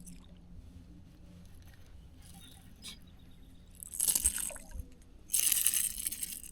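Water splashing in two short, loud bursts, the first about four seconds in and the second about a second later.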